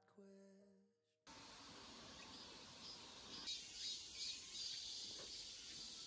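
A background song fades out on a held sung note. Then, about a second in, a steady outdoor summer ambience begins, a soft hiss with a faint insect chorus, and it gets a little louder about halfway through.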